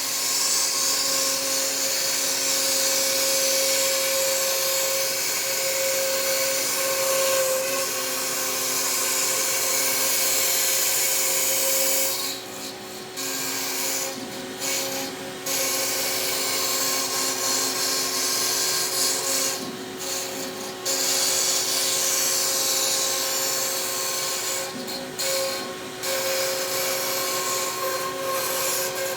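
CNC router spindle with a 1/8" bit cutting cast acrylic: a steady spindle whine under a loud cutting hiss. The cutting hiss drops away briefly about four times, near halfway, a little later, about two-thirds in and near the end, then comes back.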